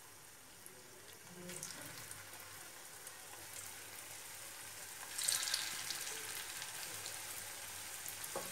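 Chhana (cottage cheese) kofta balls sizzling as they shallow-fry in hot refined oil, with a louder burst of sizzling about five seconds in as another ball goes into the oil.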